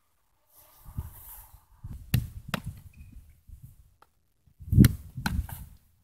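Sharp thuds and slaps of a football thrown in, striking goalkeeper gloves and the artificial turf: a handful of knocks, the loudest about five seconds in.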